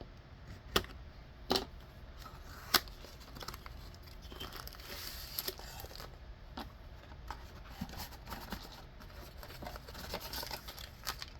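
Cardboard kit box and paper packaging being handled and opened: three sharp knocks in the first three seconds, then stretches of tearing and crinkling paper.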